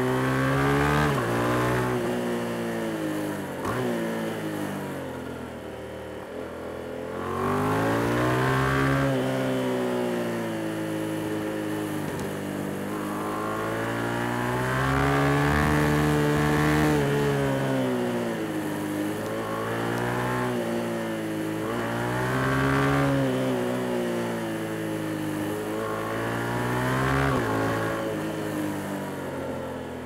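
Yamaha MT-07's 689 cc parallel-twin engine, heard from the rider's seat, repeatedly accelerating and backing off on a twisty road. Its pitch climbs and falls about five times, with rises around 7–9 s, 14–17 s, 22 s and 26 s, over a steady rush of wind noise.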